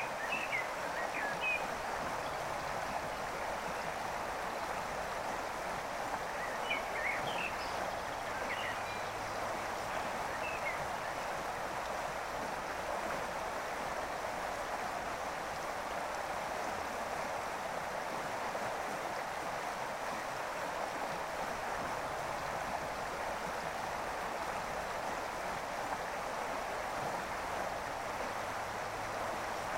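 Steady rush of a flowing stream, with a few short bird chirps near the start and again around seven to eleven seconds in.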